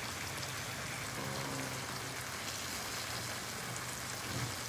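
Hot cooking oil sizzling steadily in a frying pan on a gas stove.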